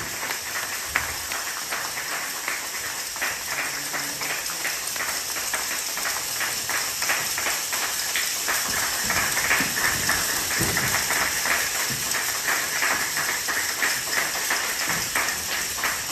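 Audience applauding, a steady run of hand claps with some single claps standing out close by.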